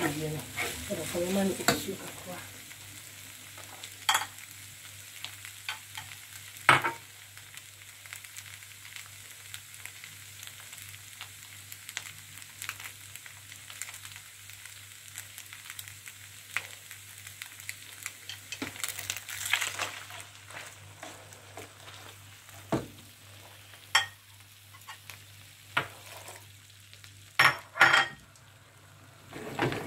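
Minced meat sizzling as it browns in a nonstick frying pan, stirred with a slotted plastic spatula. It starts with busy stirring, then settles to a steady sizzle broken by scattered sharp scrapes and knocks of the spatula against the pan, which come more often near the end.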